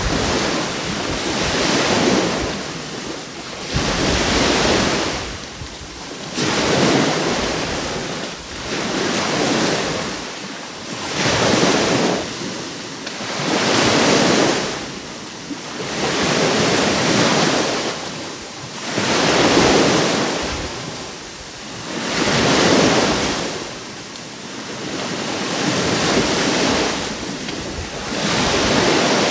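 Sea waves breaking on the shore, one surge of surf about every two to three seconds, each swelling and then falling away.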